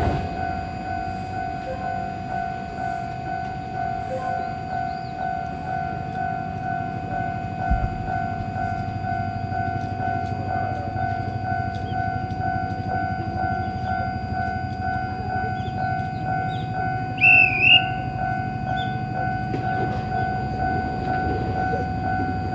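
Railway level-crossing alarm ringing continuously in a steady pulsing electronic tone, over the low rumble of an Iyotetsu 3000 series train at the bridge station. A short, loud, high two-part tone sounds a little over two-thirds of the way in.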